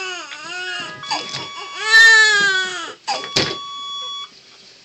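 Newborn baby crying: two long cries, the second the loudest, followed by a short sharp knock. A thin steady electronic tone sounds behind them and cuts off a little past four seconds in.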